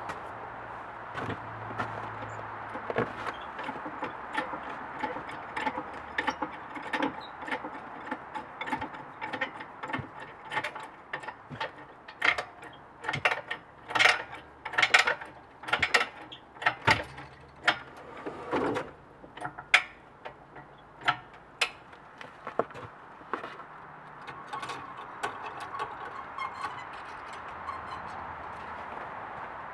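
Engine hoist being worked by hand at its hydraulic ram and handle: a run of irregular sharp metal clanks and clicks, densest and loudest around the middle.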